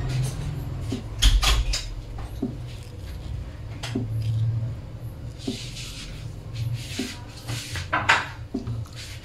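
Kitchen knife cutting through a mango held in the hand, with the slices set down on a cutting board: a scattered series of soft clicks and taps, the loudest a low knock about a second in, over a steady low hum.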